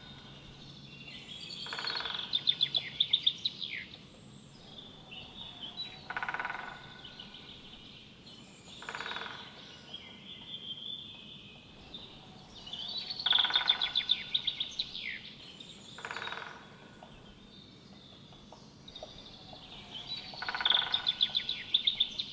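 Woodpecker calling: a rapid series of sharp notes about a second and a half long, recurring roughly every seven to eight seconds, with shorter calls in between over a faint steady outdoor background.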